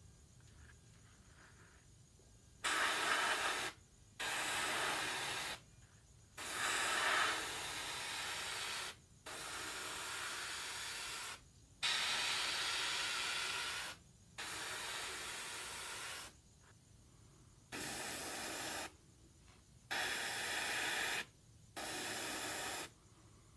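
Siphon-feed airbrush spraying touch-up paint in short passes: a steady hiss of air and paint mist that switches on and off sharply about nine times, each burst lasting one to three seconds as the trigger is pressed and released.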